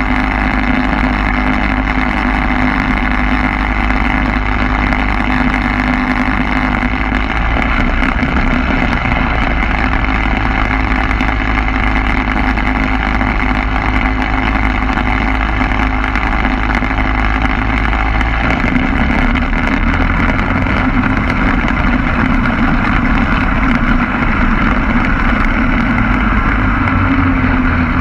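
Quicksilver MX ultralight's engine running steadily, its pitch changing about two-thirds of the way through and again near the end.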